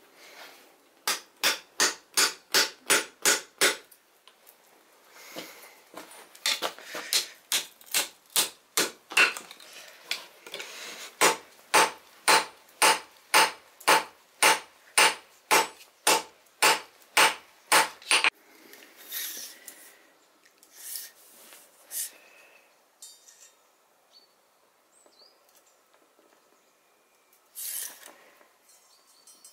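Hand hammer blows on red-hot rebar over a steel anvil, ringing out in three runs of regular strikes at about two to three a second. After that, a few scattered lighter knocks and scrapes of metal.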